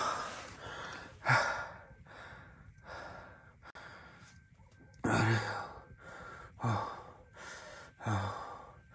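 A man breathing out heavily and sighing from the bitter cold, a series of loud, breathy exhales a second or two apart.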